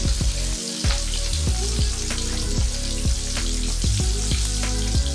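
Fish frying in hot oil in a pan, a steady sizzle, under louder background music with a steady beat.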